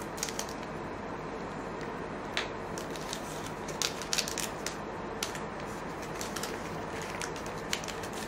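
A trading-card pack's foil wrapper crinkling and the cards being handled, with an irregular scatter of small clicks and crackles over a steady low hum.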